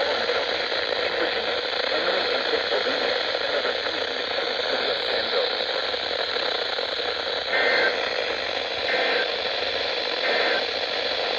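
Steady hissing, crackling radio static from a weather-radio receiver on a weak signal. Near the end come three short, two-tone warbling data bursts about a second apart, the EAS/SAME digital header that opens an alert.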